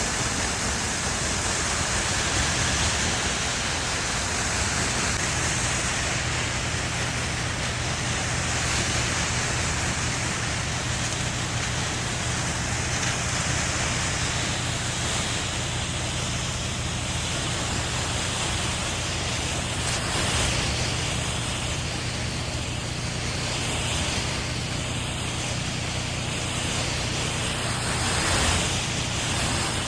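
Motorized orchard sprayer running: a steady low engine hum under a loud, even rushing hiss of spray and air.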